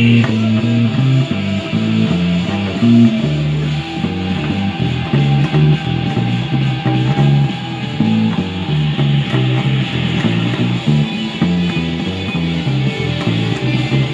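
Guitar played through an amplifier: a continuous run of low single notes picked one after another.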